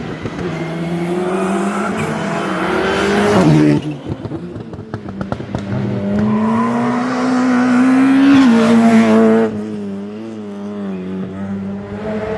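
A rally car's engine pulling hard with rising pitch, then cut sharply on lift-off about 4 seconds in, with a string of exhaust pops and crackles. It pulls up through the revs again and lifts off near 9.5 seconds, settling to a steadier, lower note.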